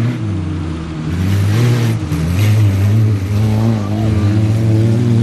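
Autocross race cars' engines revving hard across a dirt field, the pitch rising and falling as the drivers work the throttle, with a rushing hiss partway through.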